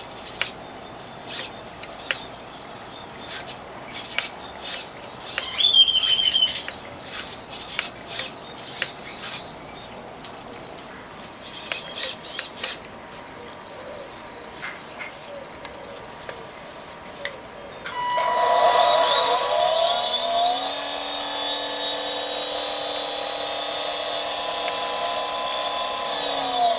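Small electric RC motor and propeller on a converted RC plane being throttled up: it starts with a quick rise in pitch, runs at a steady high whine, and winds down at the end. Before it starts, faint clicks and one brief high chirp come from the rudder servo being worked from the transmitter.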